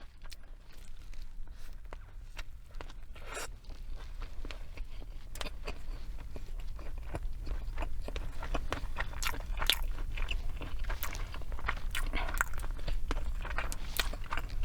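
Close-miked chewing and biting of crunchy fried fast food, with crisp crunches and wet mouth clicks that grow denser and louder from about five seconds in. A steady low hum runs underneath.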